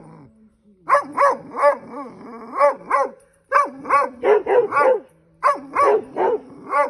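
A dog barking rapidly at a snake, in three bouts of several sharp barks each with short pauses between them.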